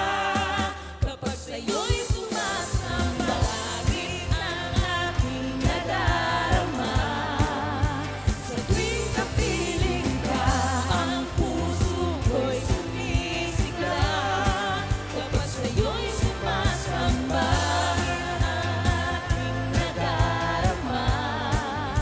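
A song plays, with a lead vocal singing a wavering melody over a strong bass line and a steady drum beat. It is softer for about the first second, then fills out.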